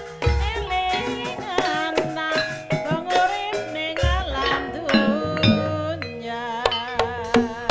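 Banyumasan gamelan accompaniment for an ebeg dance: a singer's voice with wavering ornaments over held metallophone tones, punctuated by deep kendang hand-drum strokes and sharp struck accents.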